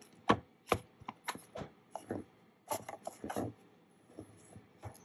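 Hands handling a coin presentation box: a series of short taps, clicks and rubbing, busier in the first few seconds and sparser near the end.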